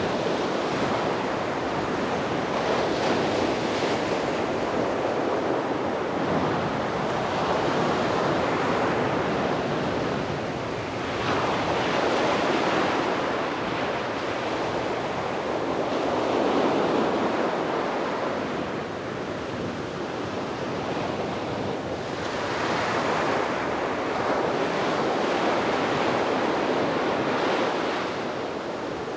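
Sea waves breaking and washing on a beach, a continuous surf rush that swells and fades every several seconds, with some wind noise on the microphone.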